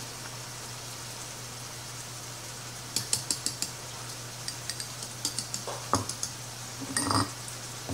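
A wire whisk clinking against small ceramic bowls as beaten eggs are scraped out into a bowl of cornmeal and flour: a quick run of light clinks about three seconds in, then scattered clinks and a knock, over a steady low hum.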